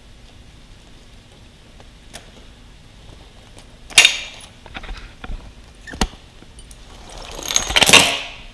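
Dirt bike drive chain being handled and pulled off. About halfway there is a loud sharp metal clank, then a few lighter knocks, then a rattling rush of chain links that swells and peaks just before the end.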